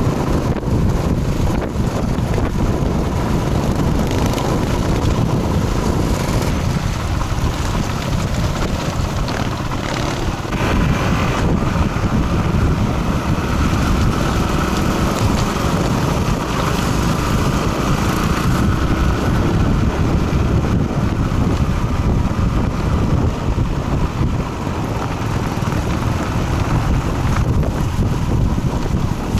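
Motorcycle under way at speed: a steady rush of wind over the microphone, with the bike's engine and road noise running underneath.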